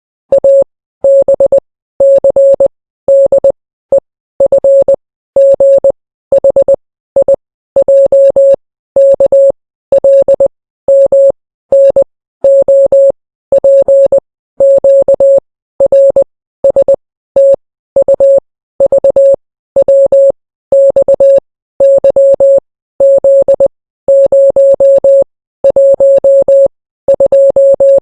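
Morse code beeps: a single mid-pitched electronic tone keyed on and off into short dots and longer dashes. The beeps come in quick groups about a second apart, one letter after another.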